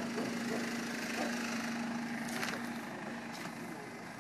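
A motor running steadily with a low hum that fades near the end, against outdoor background noise, with two short hisses in the second half.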